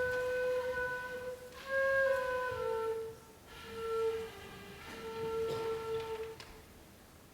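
Live music: a single melody line in slow, long-held notes, with small slides between pitches. It fades out about six and a half seconds in.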